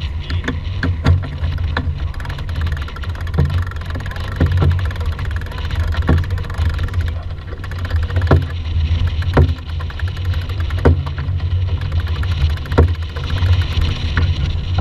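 Sheet winch on a sailboat being cranked with a winch handle to tighten the jib sheet, giving sharp clicks an irregular second or two apart. Under it runs a steady low rumble.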